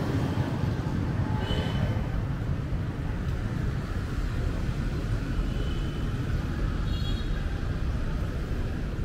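Busy city street traffic rumbling steadily, with a few short, high horn beeps sounding now and then.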